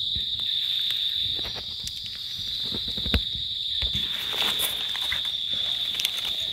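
Insects droning steadily in one continuous high-pitched tone, with scattered rustles and crackles of dry leaf litter underfoot.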